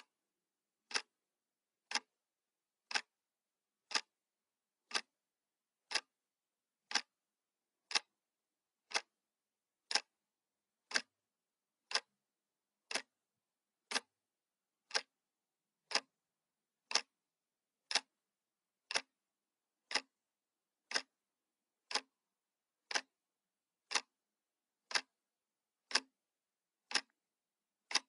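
Clock-ticking sound effect: a single short, sharp tick exactly once a second, evenly spaced, with dead silence between the ticks.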